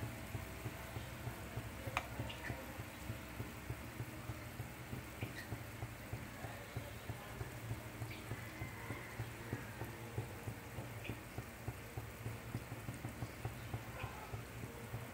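Eggplant with egg and ground pork frying in a pan of oil: a steady soft sizzle full of small crackling pops. There is a sharp click about two seconds in.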